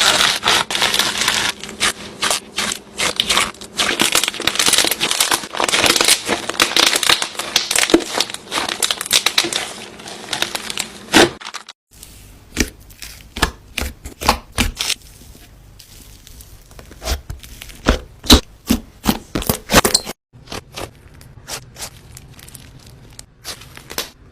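Slime being played with, crackling and popping: a dense run of crackles for about the first half, then sparser pops and clicks after an abrupt cut, and fainter clicking after another cut near the end.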